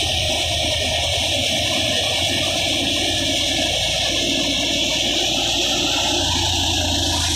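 Tractor-driven threshing machine running with straw being fed in: a loud, steady rushing whir from the threshing drum and blower, with the tractor's engine under it.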